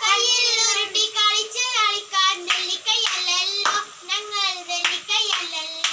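Girl's voice singing a song in held, wavering notes, with a few sharp hand claps from about two and a half seconds in.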